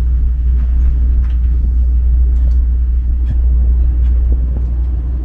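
Deep, steady rumble with a few faint clicks on top.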